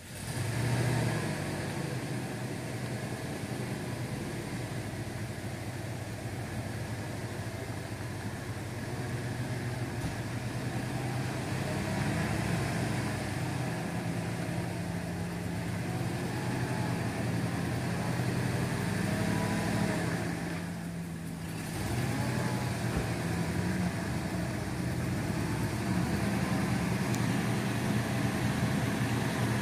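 Full-size Ford Bronco's engine running at low revs as the truck crawls through a deep rut, its pitch stepping up and down with the throttle, with a short drop in level about two thirds of the way through.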